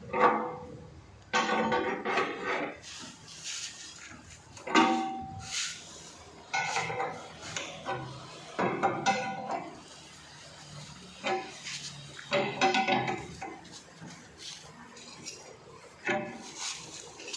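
Irregular bursts of metal tools clinking and scraping, each lasting about half a second to a second, some with a brief metallic ring.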